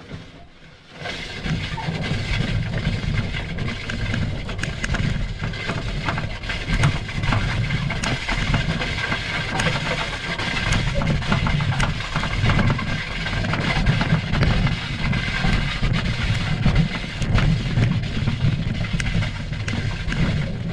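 Wheelbarrow loaded with pine branches being pushed across a lawn: a steady rumble from the rolling wheel and tray, with many small rattles and knocks, starting about a second in.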